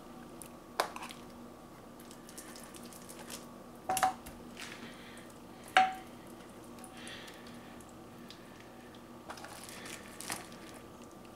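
Quiet kitchen handling of raw pork chops in a glass baking dish: three sharp clinks, about a second in, at about four seconds and near six seconds, the later two ringing briefly. Then a clear plastic meat tray rustles and crinkles, over a faint steady hum.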